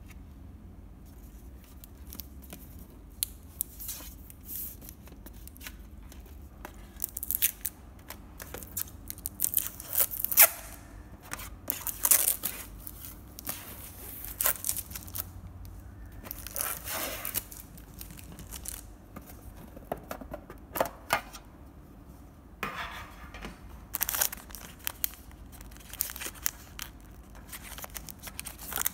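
Plastic wrapping being torn and crinkled in irregular crackling bursts as a metal cookie tin is unwrapped and opened. Near the end come the crinkles of the plastic bags holding the individual cookies being handled.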